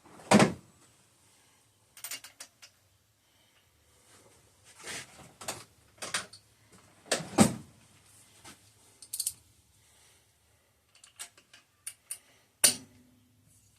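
Scattered metallic clicks, clinks and short knocks from hand tools working on a Kohler KT17 engine's spark plugs, with three louder knocks spaced several seconds apart.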